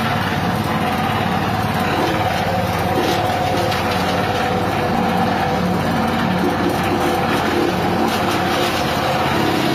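Cassava grinding machine running steadily, driven by a small petrol engine, while cassava roots are fed in and shredded, with faint irregular crackles of the chopping over the engine.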